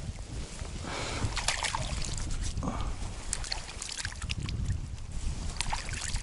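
Water sloshing and splashing at the water's edge, over a steady low rumble.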